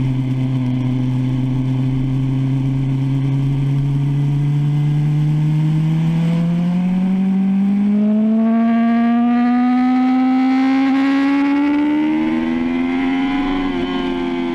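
BMW S1000RR inline-four sport-bike engine heard from on board under hard acceleration: it holds a steady note at first, then climbs steadily in pitch as the revs rise through the gear. Near the end there is a brief hitch and the pitch starts to ease.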